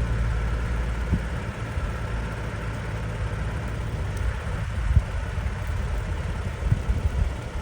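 An engine running steadily with a low rumble, which cuts off suddenly at the end.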